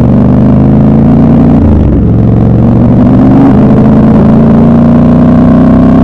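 Triumph Scrambler 1200 XC's 1200 cc parallel-twin engine heard from the rider's seat, accelerating under load. The revs drop briefly about a second and a half in, like a gear change, then climb steadily through the second half.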